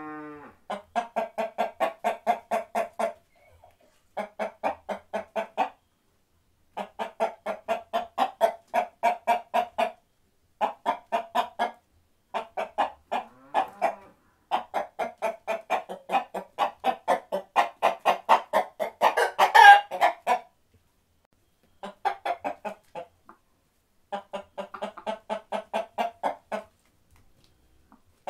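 Chickens clucking in quick runs of about four or five clucks a second, with short pauses between the runs. A louder squawk comes about twenty seconds in.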